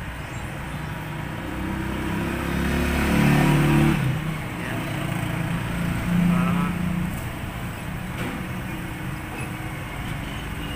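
Background road traffic: a motor vehicle's engine passes, loudest about three to four seconds in, with another engine swell about six seconds in, over a steady traffic hum.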